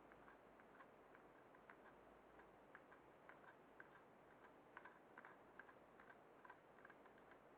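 Near silence with faint, irregular light clicks, crowding together a little past the middle.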